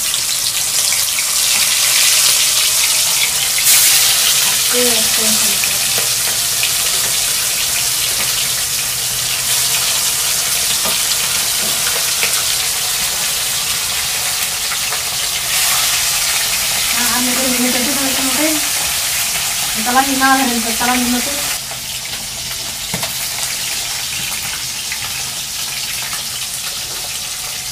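Pieces of goatfish deep-frying in hot oil in an aluminium kadai, a loud, steady sizzle. The sizzle starts suddenly as the first piece goes into the oil and eases off slightly about 21 seconds in.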